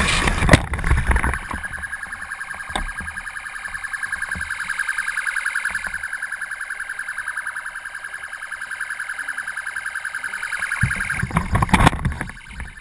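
Electronic siren or alarm sounding a steady high tone that pulses rapidly, with louder, noisy commotion at the start and again near the end.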